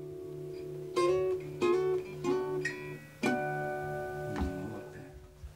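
Acoustic guitar played slowly, single notes and small chords plucked about once a second, each left to ring.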